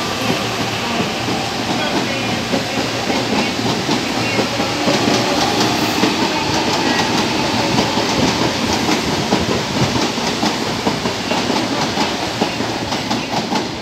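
CAF Série 7000 electric multiple unit pulling away from the platform, its running noise steady and loud. Its wheels click over the rail joints, the clicks coming more often from about five seconds in.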